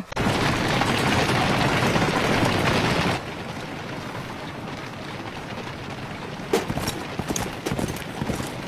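Horses galloping in a cartoon soundtrack: a loud, dense rush of noise that drops suddenly about three seconds in to a quieter steady rumble. From about six and a half seconds in, sharp hoofbeats clatter over it.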